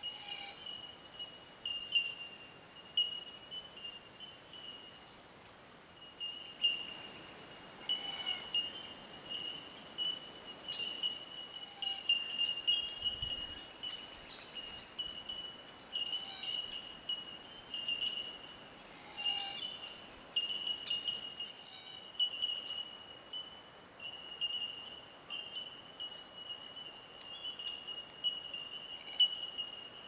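Bush ambience: a continuous high-pitched chirping chorus that pulses irregularly, with a few faint clicks over it.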